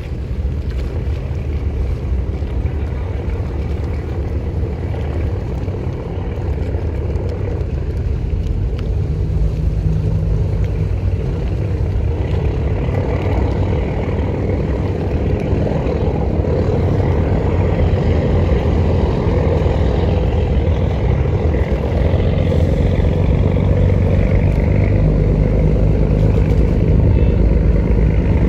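Ferry engine running with a steady low drone, growing gradually louder.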